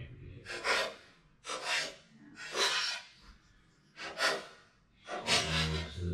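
A small dog sniffing and snorting hard at a treat puzzle: short, noisy bursts of breath about once a second.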